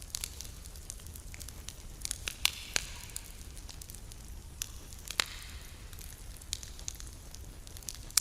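Campfire crackling: burning wood giving off irregular sharp pops and snaps over a faint hiss, with a few louder snaps about two and a half and five seconds in.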